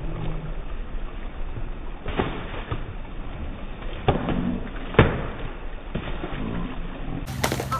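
Water splashing in an above-ground pool, with several sharp slaps as pool noodles strike the water, the loudest about five seconds in. A steady low hum comes in near the end.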